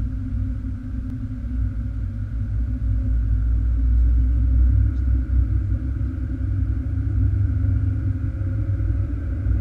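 A car's engine and tyre rumble heard from inside the cabin while driving: a steady low drone that swells slightly about halfway through.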